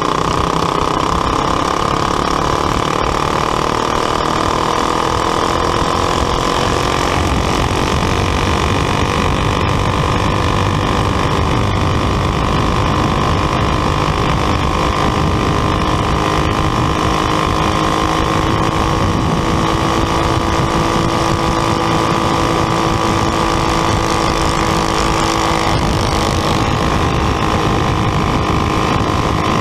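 Champ kart engine running hard at racing speed, heard onboard from the kart's roll cage: a loud, steady drone whose pitch climbs slowly over the first half as the kart gets up to speed, then holds.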